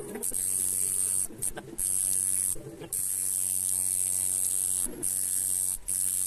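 Electric tattoo machine buzzing as it runs, in stretches of a second or two with several brief stops.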